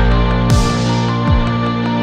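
Electronic background music: sustained synth tones over a steady deep kick-drum beat, with a cymbal crash about half a second in.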